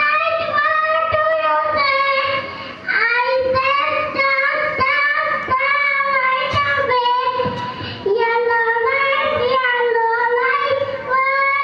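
A young child singing a nursery rhyme in a high, clear voice, in sustained phrases with short breaks between them.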